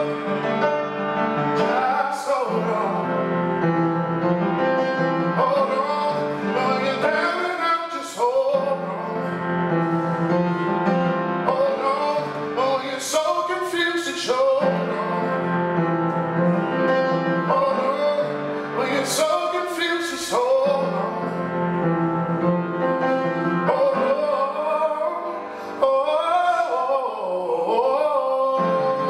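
A man singing a slow song to piano accompaniment, with held chords under a melody that rises and falls.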